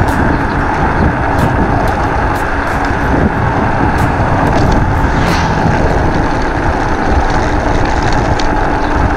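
Wind buffeting the microphone and road noise from a moving Raze Taurus XT electric scooter, a steady dense rumble with a faint, even whine and occasional light clicks.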